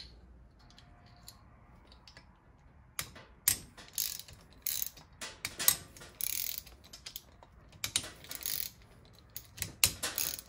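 Hand ratchet clicking in several quick runs as it loosens the 10 mm head nuts on a 125cc Chinese ATV engine's cylinder head. The clicking starts about three seconds in after a quiet start, with short pauses between the runs.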